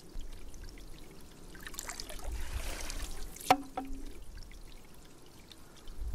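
Chalk scraping on a blackboard as strokes are drawn, building to a scratchy hiss a couple of seconds in. One sharp click a little past halfway is the loudest sound.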